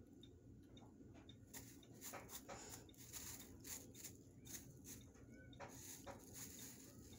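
Thin plastic bag crinkling faintly in irregular bunches of crackles as a kitten paws at it and pushes into it, busiest through the middle.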